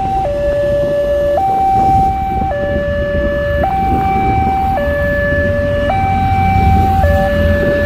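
Railway level-crossing warning alarm sounding as a two-tone electronic hi-lo, switching between a lower and a higher note about every second. Underneath are a low rumble from the receding train and idling motorcycle engines.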